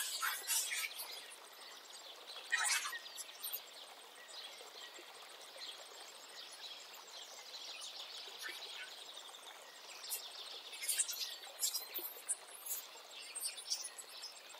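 Water pouring into a plastic bowl and splashing as leafy greens are swished and rinsed by hand, then water splashing off a radish held under the stream near the end. The splashing comes in bursts, loudest at the start and in the last few seconds, with a quieter stretch between where birds chirp faintly.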